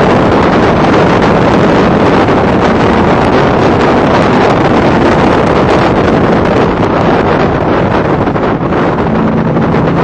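Factory Five Cobra race car at racing speed, heard from an onboard microphone: loud engine and heavy wind buffeting, easing a little about seven seconds in.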